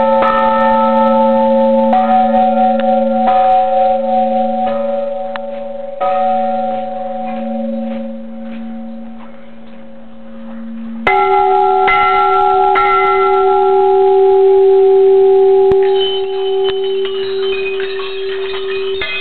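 Large hanging brass temple bell struck repeatedly, each strike ringing on with a long hum. About eleven seconds in, a bell of a different pitch is struck loudly and rings on. Near the end, many small hanging bells are rung in quick succession.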